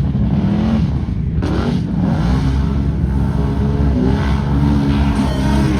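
First-generation Can-Am Outlander ATV engine revving hard while pushing through deep mud, its pitch stepping up and down with the throttle.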